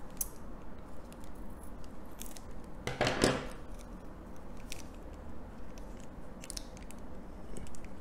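Hands handling small hardware while picking out a tiny NVMe mounting screw from the motherboard's supplied screws: scattered light clicks and small rattles, with a louder brief rustle about three seconds in.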